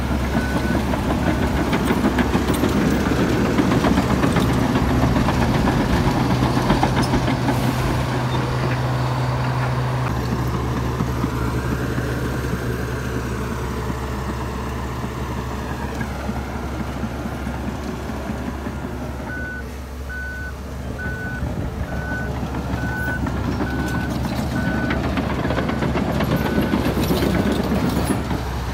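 Komatsu D61EX bulldozer's diesel engine running steadily under load. A reversing alarm beeps in an even series at the very start and again for several seconds about two-thirds of the way through.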